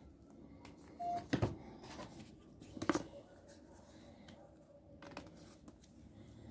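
Handling noise from a USB cable being fitted to a mobile phone: rustling with two sharp clicks, about a second and a half and three seconds in, and a short beep just before the first click.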